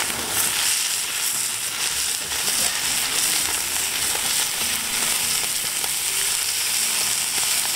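Whole shrimp and rib meat sizzling in black steel pans over a wood fire: a steady frying hiss.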